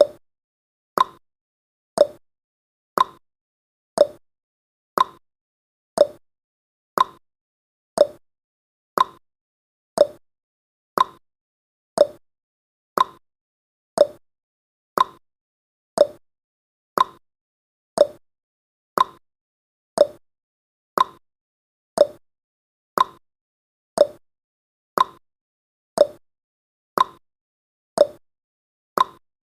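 Countdown timer's clock-tick sound effect: one short, sharp tick every second, perfectly regular.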